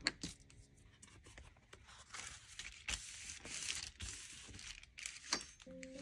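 Paper being torn by hand: a soft rasping stretch lasting a couple of seconds, starting about two seconds in, then a light tap. Gentle background music begins just before the end.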